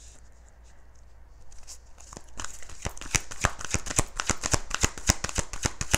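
A deck of tarot cards being shuffled by hand. Faint card rustling at first, then from about two and a half seconds in a fast run of crisp card clicks, many a second, growing louder.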